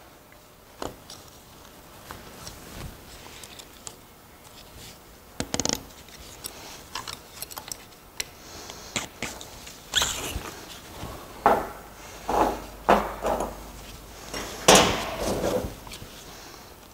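Hand work on a transfer case: scattered small metallic clicks, knocks and short scrapes as parts on the output shaft are handled and worked off, with a busier run of scrapes and knocks in the second half.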